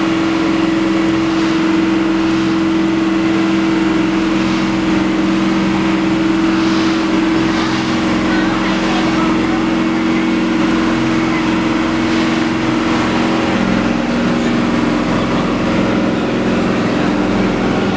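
Boat's engine running under way: a steady low hum that holds unchanged, over an even rushing noise.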